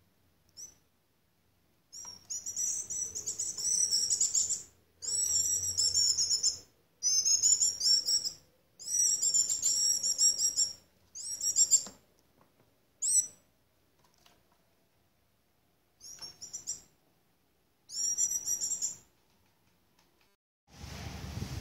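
Female shiny cowbird fledgling calling in about nine bursts of rapid, high, chattering notes, each half a second to two seconds long with short silent pauses between: the begging calls of a young hand-raised bird.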